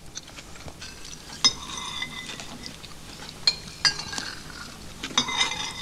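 Cutlery clinking against china plates during a meal: a handful of sharp, ringing clinks spread through, with a small cluster near the end and faint clatter between.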